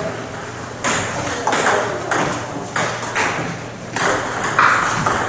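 Table tennis ball bouncing: about six sharp knocks, roughly half a second apart.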